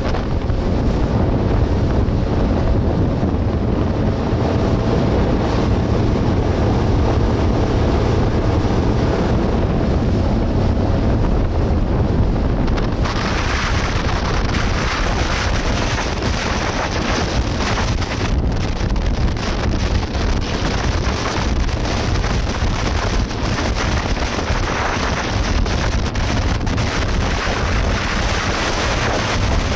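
A motorboat underway over open water: wind buffeting the microphone in a steady heavy rumble, with the rush and hiss of water along the hull. About 13 seconds in, the hiss gets noticeably brighter and louder and stays so.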